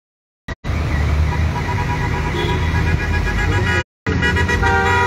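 Steady low rumble of a vehicle running on a flooded road. The sound cuts out completely twice. Near the end a car horn starts sounding, a held steady note.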